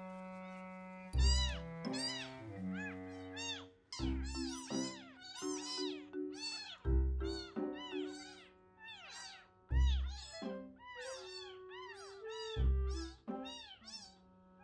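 Newborn kitten mewing repeatedly in many short, high cries, over background music with a steady beat.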